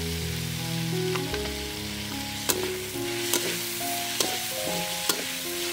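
Chicken sizzling in a metal wok while a metal ladle stirs it. The ladle scrapes the pan and knocks sharply against it about once a second, five times. Background music plays underneath.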